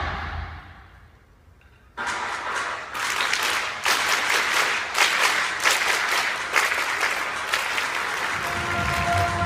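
After a lull, applause breaks out suddenly about two seconds in and carries on; faint music comes in near the end.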